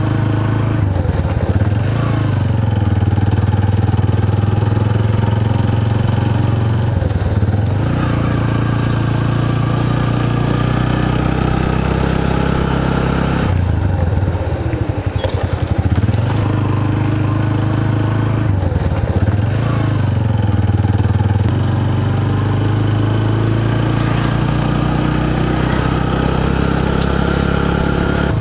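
Motorcycle engine running while being ridden, its note dropping and picking up again several times as it slows and speeds over a rough road, with a few light rattles.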